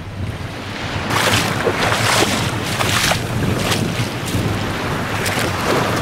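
Small sea waves washing on the shore with wind buffeting the microphone, and a person wading through shallow water, splashing at each step from about a second in.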